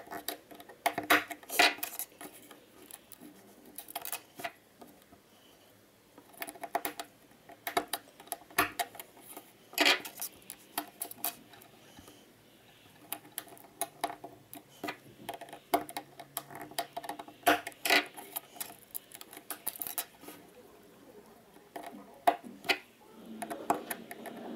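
Irregular light clicks and taps as a small screwdriver pushes small 3D-printed plastic parts into a plastic hexagon frame and the parts knock together.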